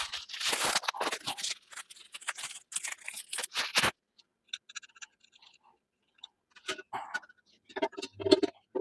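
Packaging crinkling and rustling as a small filter part is unwrapped, stopping suddenly about four seconds in. Then a few faint clicks, and near the end a clank with a short ring as the stainless steel filter container is tipped and handled.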